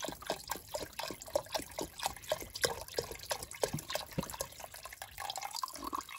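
A thin stream of water pouring into a stockpot of beef broth, splashing and bubbling steadily as the pot is topped up to cover the roast.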